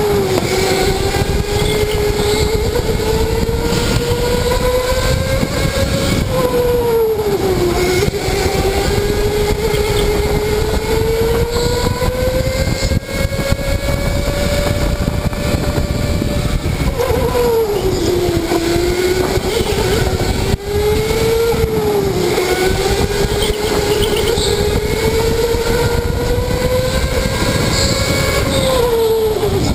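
Electric go-kart motor whining under way, its pitch climbing slowly on the straights and dipping sharply about four times as the kart slows for corners, over a steady rush of noise.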